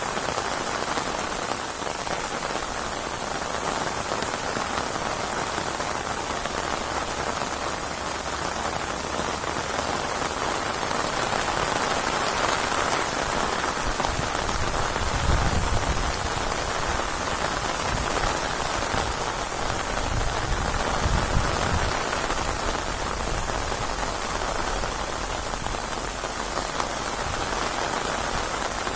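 Steady rain pouring onto surfaces, an even hiss of many drops. Two low rumbles swell under it about halfway through.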